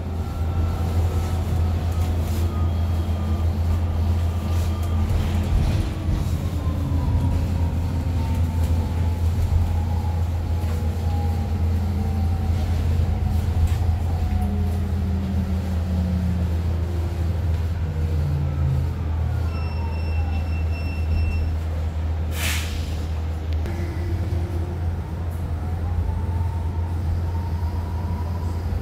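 BYD K9 battery-electric bus's traction motor whining over a steady low drone. The whine falls in pitch through the first ten seconds as the bus slows, then rises again near the end as it pulls away. About twenty seconds in, a steady beep sounds for roughly two seconds, followed by a short, sharp hiss of air.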